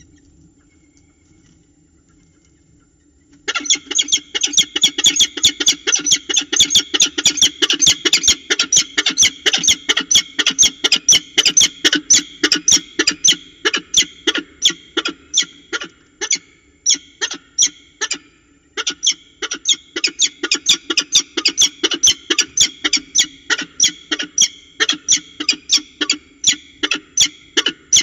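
Peregrine falcon giving its harsh kak-kak alarm call, a fast run of short repeated calls, several a second, starting about three and a half seconds in and going on with only brief pauses: an alarm at an intruder near the nest.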